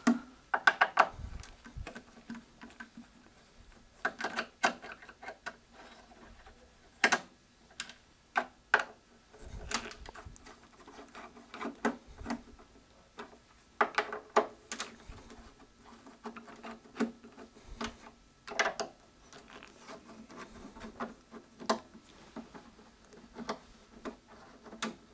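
Torx screws being turned out of the side of an HP 8711C network analyser's metal case with a hand Torx driver: irregular small metal clicks and taps as the driver seats and the screws come loose.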